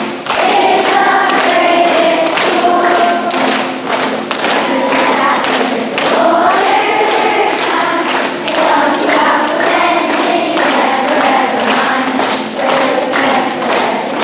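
A group of children singing together as a choir, with a steady thumping beat running through the song.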